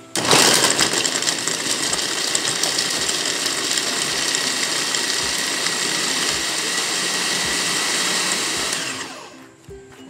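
Electric push-top mini food chopper running, its blade mincing carrot chunks. The motor starts suddenly, runs steadily for about nine seconds, then stops near the end.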